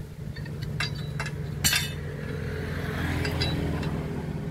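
A handful of sharp metallic clinks from a steel wrench knocking against the steel drill pipe and its clamp as a joint of a manual well-boring pipe string is worked. Under them an engine runs steadily.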